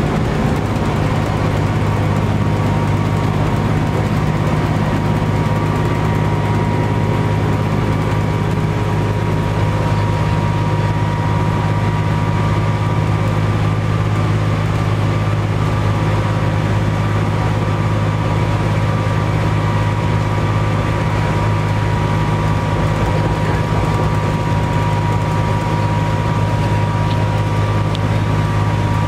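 A 1998 New Flyer D40LF transit bus's Cummins ISC straight-six diesel running at a steady, unchanging pitch, heard from on board, with a steady whine above the engine note.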